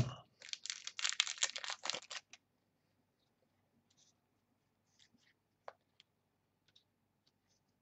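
A knock, then about two seconds of crinkling and tearing as a foil trading-card pack wrapper is ripped open. Faint rustles and light clicks follow as the cards are handled and slid apart.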